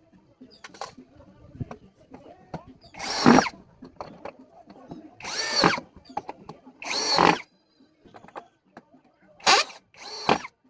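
Power drill running in five short bursts, its motor pitch rising as each burst starts, with small knocks and clicks in between.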